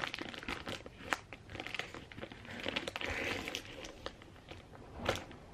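Plastic vacuum-storage bag crinkling and crackling as it is handled and its press-seal zip is pulled open: a string of small crackles, with a louder rustle near the end.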